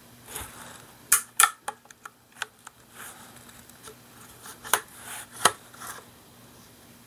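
Sharp metallic clicks and clacks from handling the opened receiver of a Rossi Gallery .22 LR pump rifle: a quick run of small clicks about a second in, then two louder clacks near the end.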